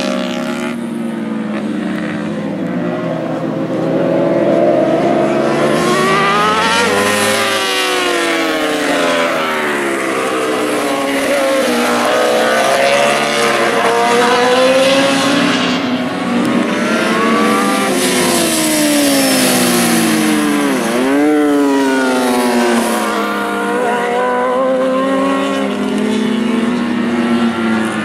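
Several 1000cc superbikes racing, their engines revving up and down and overlapping as the bikes go through a corner and pass by, the pitch rising and falling again and again. About three-quarters of the way through, one bike's note dips sharply and climbs again.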